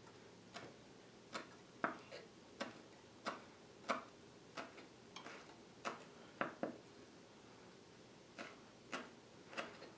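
Chef's knife chopping chives on a wooden cutting board: a string of about fifteen faint, sharp knocks of the blade on the board, roughly two a second, with a pause of about a second and a half late on.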